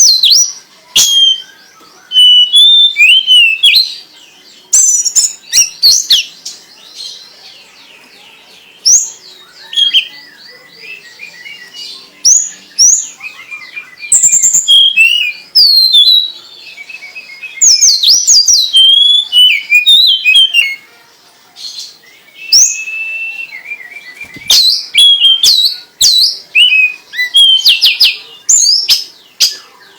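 Songbird singing loud, varied phrases of quick whistles and chirps, in bursts of a second or so broken by short pauses.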